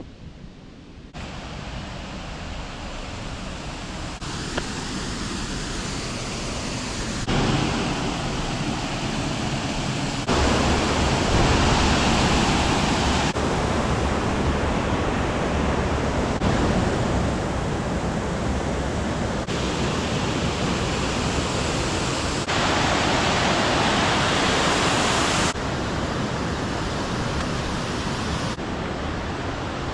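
Waterfall rushing: a dense, steady wash of falling water with no distinct tones. Its level and tone jump abruptly every few seconds.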